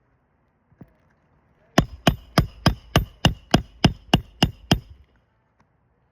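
Hammer driving roofing nails through asphalt shingles along the nail line: a light tap, then a quick run of about eleven sharp, ringing blows at about three a second that stops near the end.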